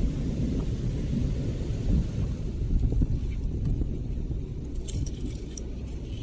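A steady low rumble, with a few light clicks of shells and coral rubble about five seconds in as a gloved hand picks a small shell out of the beach grit.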